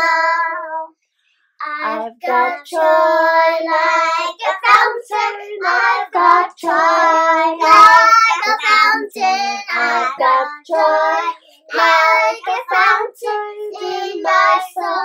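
Young children singing a song without accompaniment, with a short break about a second in.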